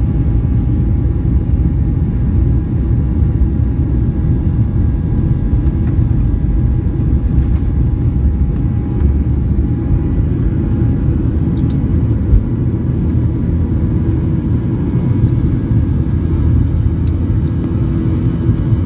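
Inside the cabin of a Boeing 737-800 on its takeoff roll: the CFM56-7B27E turbofans at takeoff thrust make a steady, loud, deep rumble. A faint steady whine fades out about halfway through.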